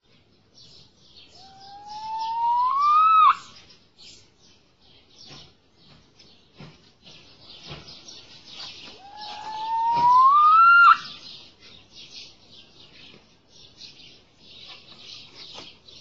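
Snowcock giving its song: two long, loud whistles, each rising steadily in pitch and ending abruptly, the second about six seconds after the first. A continuous high twittering of small birds runs underneath.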